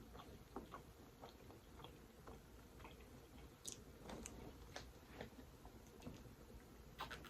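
Faint, scattered wet clicks and smacks of a person chewing food close to the microphone.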